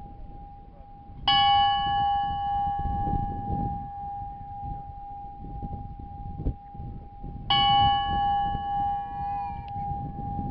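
A bell struck twice, about six seconds apart. Each stroke rings on in a long, steady hum that never dies away before the next.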